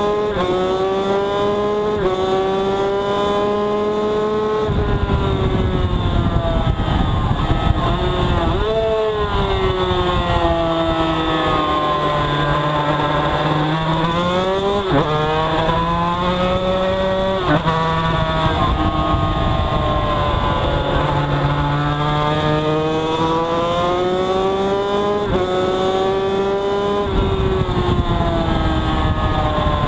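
Yamaha TZ250 two-stroke road-racing motorcycle engine at race pace, heard from the bike itself. The revs climb and break off with gear changes, fall away while slowing for a corner around the middle, then climb through the gears again under hard acceleration.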